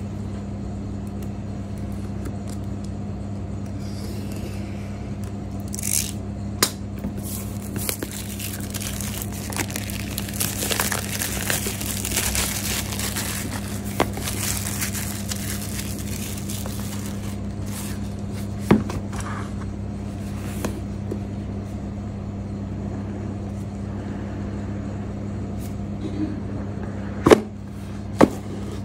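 Plastic shrink wrap being slit and peeled off a cardboard phone box, crinkling for several seconds in the middle, with a few sharp taps and clicks as the box is handled and opened. The two loudest clicks come near the end. A steady low hum runs underneath.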